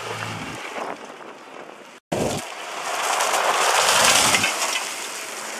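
Off-road SUV driving up a loose gravel track, its engine running under the rush of tyres throwing gravel and dust. The sound breaks off briefly about two seconds in, then the rush swells, peaks around four seconds and eases off.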